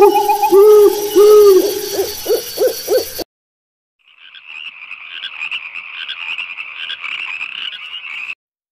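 Animal calls: a few low, pitched hooting calls repeated for about three seconds, then, after a short silence, a dense pulsing chorus of higher-pitched calls that stops shortly before the end.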